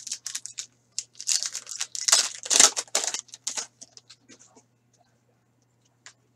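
A hockey card pack's wrapper being torn open and crinkled by hand: a dense run of crackling for about three and a half seconds, loudest in the middle. After that come only a few faint ticks as the cards are handled.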